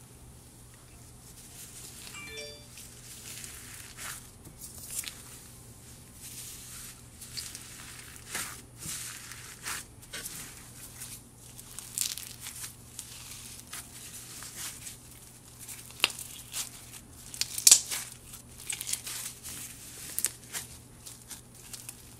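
Hands kneading and stretching crunchy microfloam slime, white glue slime packed with tiny foam beads, which crackles and snaps irregularly. The sharpest crunch comes about three-quarters of the way in.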